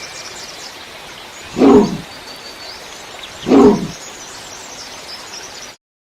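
Short animal calls, presented as the call of the thylacine (Tasmanian tiger), come twice, about two seconds apart, over a steady hiss. The sound cuts off abruptly near the end.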